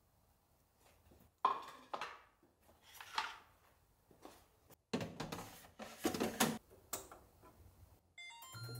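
Dishes and kitchen utensils clinking and knocking in scattered strokes, busiest about five to six and a half seconds in. Near the end comes a quick run of electronic beeps, and then a steady low appliance hum starts.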